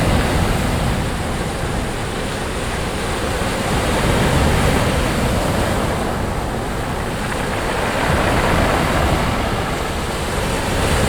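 Surf breaking and washing up on a sandy beach, the waves swelling and easing about every four seconds.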